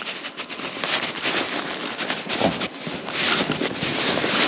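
Crackling rustle of a winter jacket and gloved hands handling a fish while the hook is worked out of its mouth, louder in the second half.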